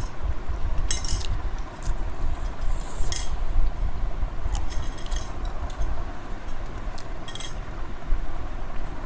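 Spoons clinking and scraping against plates a handful of times during a meal, over a steady low rumble.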